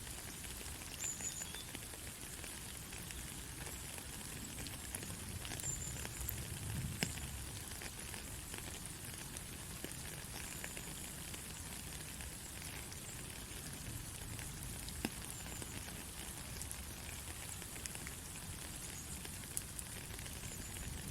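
Soft steady rain falling, an even fine hiss with scattered drop ticks. A few faint short high chirps come and go.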